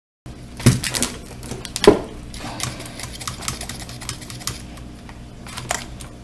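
Small hard granules rattling and clicking against a glass jar as it is handled, in irregular clatters loudest about a second and two seconds in, over a low steady hum.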